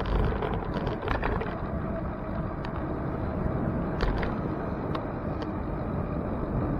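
Steady rumble of wind and road noise picked up by a camera on a moving bicycle, with a few sharp clicks, at about one second, four seconds and five and a half seconds.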